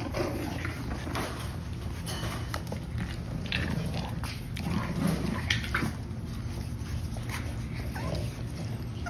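Seven-week-old French bulldog puppies play-fighting, letting out many short high-pitched yips and squeaks, a little louder around the middle.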